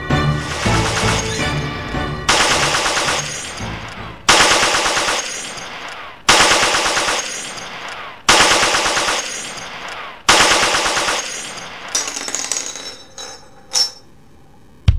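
Heavy machine gun firing five bursts about two seconds apart, each starting sharply and dying away, followed by a single sharp click near the end.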